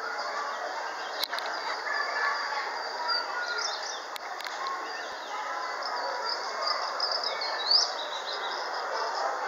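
Small birds chirping and twittering in short calls, one a quick rising sweep near the end, over a steady background hubbub. A sharp click sounds about a second in, and another about four seconds in.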